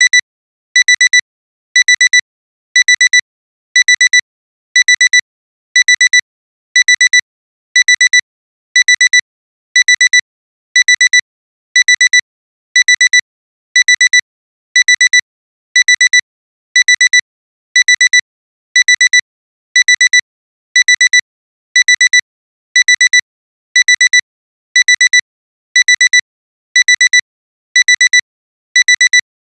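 Digital alarm clock alarm beeping: a high-pitched, rapid cluster of beeps about once a second, repeating steadily, signalling that the timer has run out.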